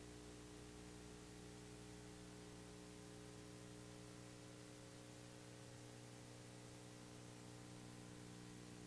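Near silence: a faint steady electrical hum with hiss, and no game sound.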